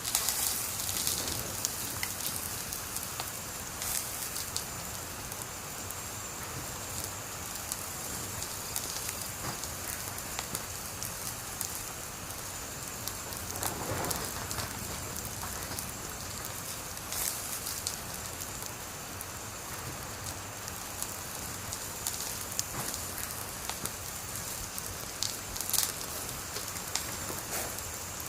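Wood fire burning with a steady hiss and dense crackling, and a few louder pops and snaps scattered throughout.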